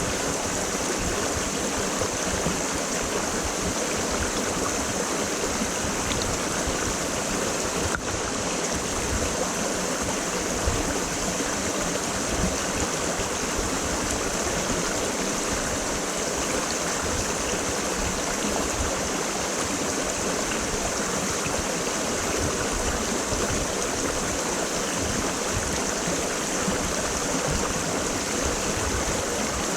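Creek water flowing steadily, an even rushing noise, with a brief dip about eight seconds in.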